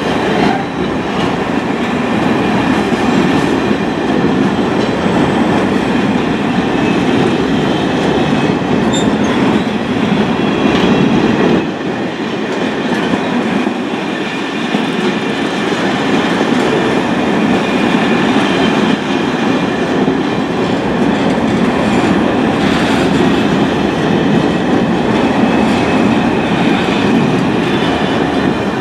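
Train running close by on the rails: a loud, continuous rumble of wheels and cars, steady throughout apart from a brief drop about twelve seconds in, with thin steady high tones over it.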